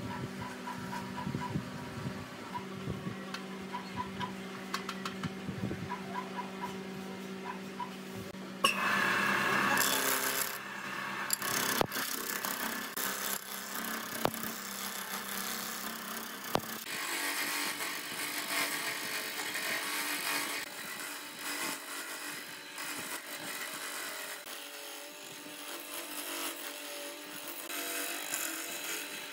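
Small wood lathe running with a steady motor hum, then, about nine seconds in, a turning tool bites into the spinning laminated wood block. A loud, rough scraping follows and rises and falls as the tool roughs the block round.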